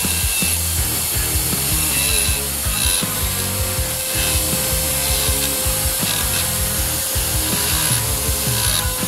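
Electric die grinder running a ball carbide burr against the cast iron of a Ford 302 Cleveland 2V cylinder head's exhaust port, smoothing around the valve guide boss. A steady motor whine runs under rough, uneven grinding chatter.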